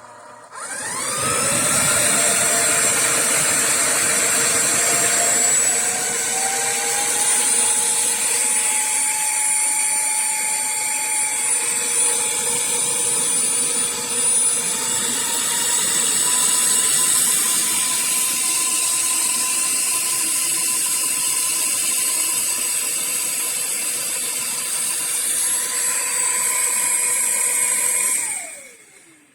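Bissell CrossWave OmniForce wet-dry floor cleaner's motor starting up with a rising whine, running steadily and loudly, then winding down with a falling pitch near the end.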